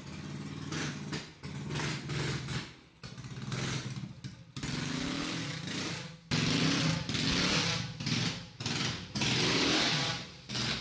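Small single-cylinder gas engine on a drift trike running and revving, the throttle opened and let off several times, with short drops in between.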